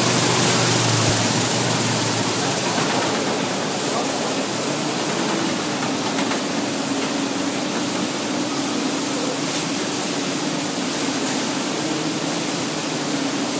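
Özstar nut roasting and conveying machinery running: a steady, loud rushing noise with a motor hum that steps up in pitch about three seconds in.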